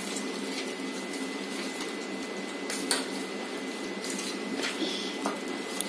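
Chicken being mixed with a yogurt and spice marinade in a bowl, with a few light clinks against the bowl.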